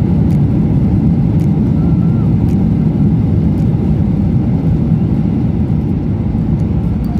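Steady low rumble of a Boeing 737-800's CFM56 engines and airflow, heard from inside the cabin as the plane comes in to land, easing off slightly near the end.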